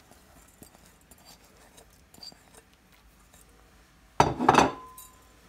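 Glass mixing bowl clattering as it is set down, a few quick clinking knocks about four seconds in with a brief ringing tone after.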